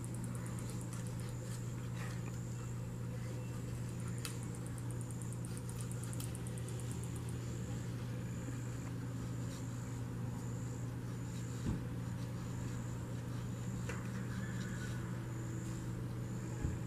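Insects chirping in a regular high pulse about once a second, with a fast high trill in the first several seconds, over a constant low hum. Two faint thumps come near the middle and near the end.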